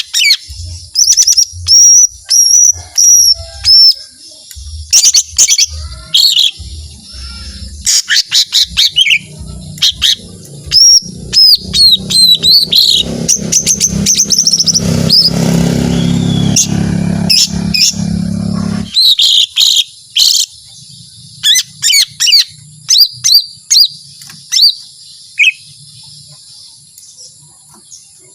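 Cucak ijo mini (lesser green leafbird) singing loudly in rapid runs of sharp whistled and chattering notes, its long 'shooting' song. A low rumble runs under the song for several seconds in the middle, and the singing stops near the end.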